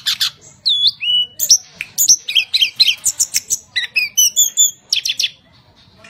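Caged tledekan gunung, a small blue-and-orange songbird, singing a loud, varied song of clear whistles, quick trills and notes that sweep up and down, stopping about a second before the end.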